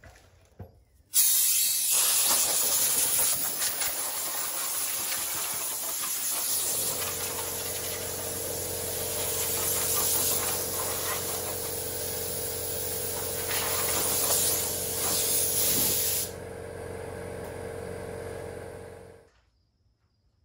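Compressed air hissing steadily from an air hose nozzle for about fifteen seconds, then cutting off. About six seconds in, a steady motor hum from an air compressor starts. It keeps running for a few seconds after the air stops, then shuts off.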